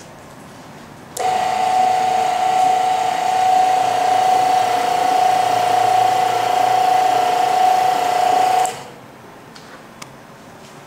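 Small electric motor of a model elevator running with a steady whine for about seven and a half seconds, starting and stopping abruptly, as the car travels down from the third floor to the first.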